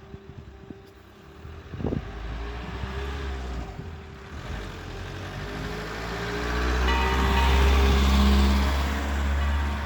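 DS 977 outdoor warning siren starting up, its pitch slowly rising as it winds up toward a steady tone near the end. A low rumble swells underneath and peaks about eight seconds in, with a sharp click about two seconds in.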